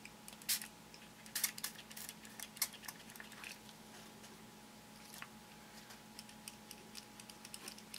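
Scattered light clicks and taps from the small pieces of a Pixos bead craft kit being handled, a few sharper ones in the first few seconds and smaller ticks later, over a faint steady hum.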